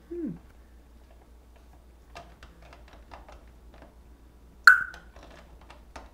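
Parrot's beak clicking and tapping on a plastic water bottle in irregular small clicks as it works the parts apart, with a short falling squeak at the start and one loud, sharp snap with a brief ring about two-thirds of the way through.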